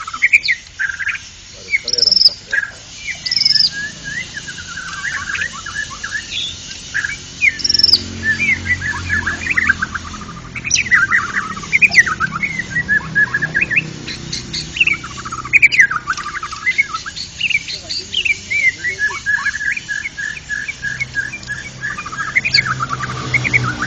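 White-rumped shama (murai batu) singing a long, varied song of rapid whistles, chirps and trills, with a run of quick repeated notes near the end.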